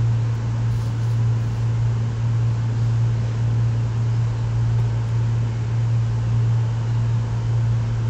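Steady low hum with an even hiss, unchanging throughout, like a motor or fan running.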